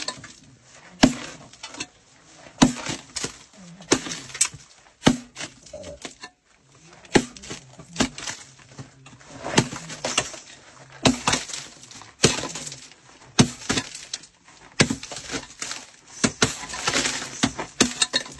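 Hand pick striking a coal face again and again, a sharp hit every second or so, with broken lumps of coal clattering down after the blows.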